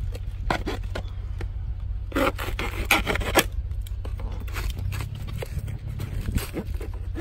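A hand tool scraping and prying around the inside wall of a plastic nursery pot to loosen a root-bound agave: a run of short rasping scrapes, busiest about two to three and a half seconds in.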